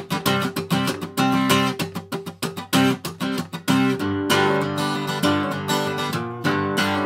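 Soundtrack music: an acoustic guitar strumming and picking in a quick, even rhythm.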